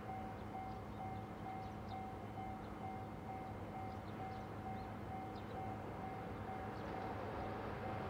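Japanese railway level-crossing warning bell ringing with a steady, evenly repeating single-pitched ding, the signal that a train is approaching, over a low steady urban hum.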